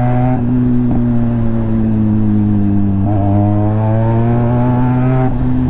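Benelli TNT 300 parallel-twin with an aftermarket exhaust, running on the road at cruising speed. The throttle eases off just after the start, so the note softens and slowly drops; it opens again about three seconds in, with a brief lift near the end.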